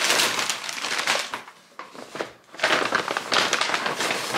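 Brown paper takeout bags rustling and crinkling as they are opened and unpacked by hand. Two long bouts of rustling with a short lull between them.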